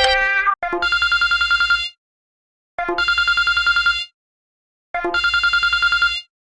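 Telephone ringtone: three rings of about a second and a quarter each, every ring a rapidly pulsing trill with short pauses between. It follows the last notes of a melodic ringtone tune.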